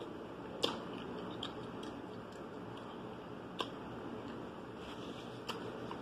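Quiet eating sounds close to the microphone: a few sharp clicks and smaller ticks, three of them louder and spread a couple of seconds apart, over a faint steady hiss.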